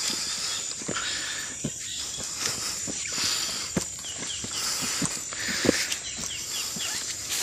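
Footsteps crunching up a dirt trail, with a steady high insect drone behind them. A bird calls in short quick falling notes a couple of times in the second half.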